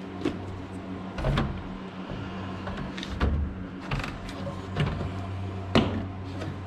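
Scattered knocks and clatters of tools and gear being handled and set down, the loudest one near the end, over a steady low hum of crawl-space drying fans.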